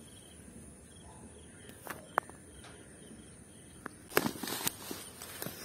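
Quiet field ambience with a steady, faint, high insect chirring. A few sharp ticks come about two seconds in, and a brief burst of rustling in grass about four seconds in is the loudest sound.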